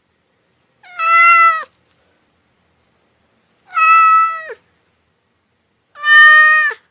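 A domestic cat meowing three times, about two and a half seconds apart. Each meow is nearly a second long, holds a steady pitch and drops at the end.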